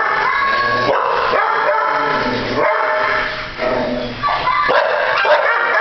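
Several dogs barking and yipping at once, their calls overlapping with no let-up.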